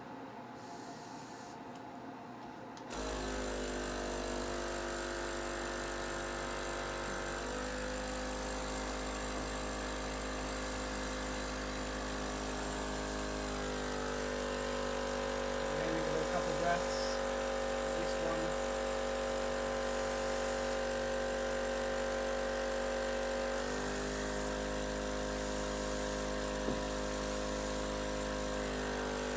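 Medical suction machine's pump motor switching on about three seconds in and running steadily with a hum, its pitch shifting several times while suctioning.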